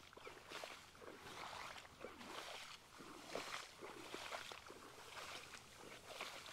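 Faint footsteps wading through a flooded rice field. Each stride, about once a second, gives a swish of rice leaves brushing past and a slosh of water.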